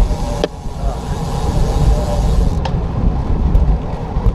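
Road noise from a moving bicycle ride: wind rumbling and buffeting on the camera microphone, with traffic noise, and two sharp clicks about half a second and two and a half seconds in.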